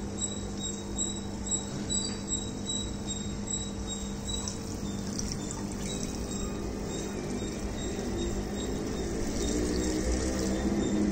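Fine white quarantine powder poured in a steady stream from a tub into a small glass tank of water, with an air stone bubbling and a steady low hum underneath. The sound grows a little louder in the last few seconds.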